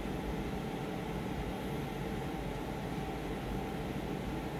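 Steady background hum and hiss with no distinct events, like a room's ventilation or air-conditioning running.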